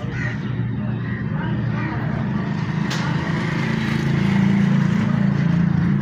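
A steady low engine hum, growing louder about four seconds in, with people's voices faintly over it.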